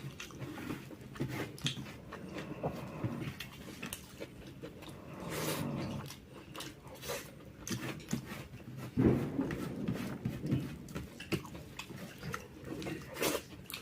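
Close-miked chewing and mouth sounds of a person eating jackfruit curry, with many short wet clicks and smacks and a louder burst of chewing about nine seconds in.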